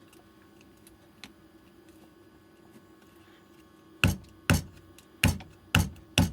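Five sharp knocks over about two seconds, starting about four seconds in, as a plastic fitting is pushed and knocked down onto a rebuilt e-bike battery pack, trying to force it into its holes.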